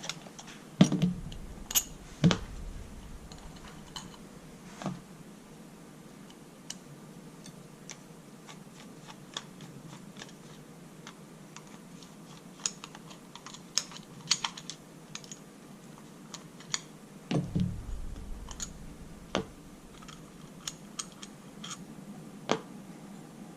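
Small metal parts and hand tools clicking and tapping on a workbench during the disassembly of a small outboard-motor carburetor. Irregular light clicks run throughout, with a few heavier knocks about a second in, about two seconds in, and around seventeen seconds in.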